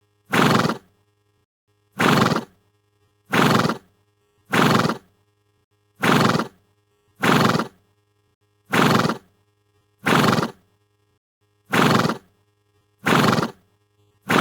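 Stallion sound effect: a short horse call of about half a second, repeated about ten times, roughly every second and a half, each one the same.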